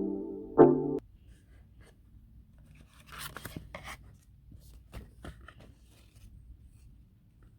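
Two last notes of background music cut off about a second in, followed by quiet handling sounds of unboxing: a short rustle of packaging and a few light clicks and taps.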